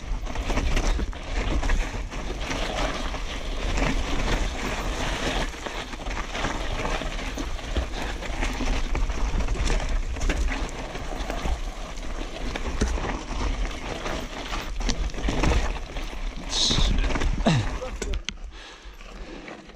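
Downhill mountain bike ridden fast down a rough dirt and rock trail, heard from a GoPro on the bike or rider: continuous tyre noise on dirt with constant rattling and knocks from the bike over bumps, and a low rumble of wind on the microphone. It eases off near the end.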